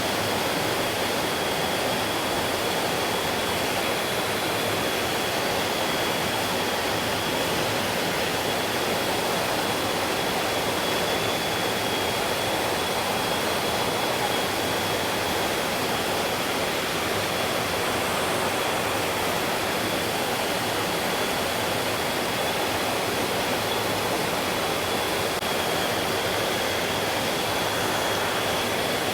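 Stream water rushing steadily, an even, unbroken wash of flowing water. A thin, steady high tone runs above it throughout.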